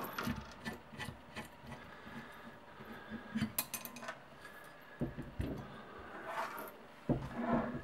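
Handling noise as a Blue Yeti microphone is unscrewed and pulled out of its desk stand: scattered clicks, knocks and rubbing of the parts against each other and the tabletop.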